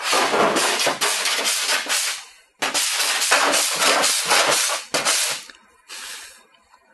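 Body file scraping across an aluminum body panel in three strokes, two long and one short, shaving off the leftover bits of a welded-on dent-pulling pin.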